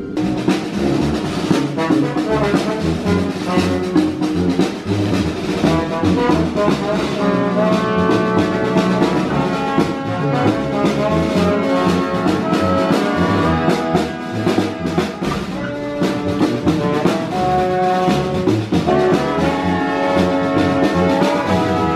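Small outdoor brass band playing a tune, with held brass notes over a steady drum beat.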